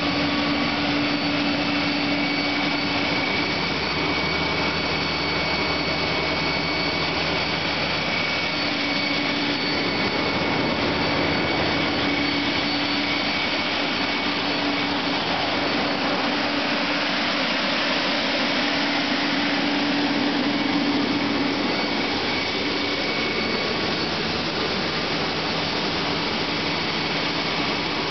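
Pierce PUC fire engine's diesel engine and 1500 gpm fire pump running steadily while pumping, with water rushing through the test discharge piping. A loud, even rush carries a steady hum and a high whine.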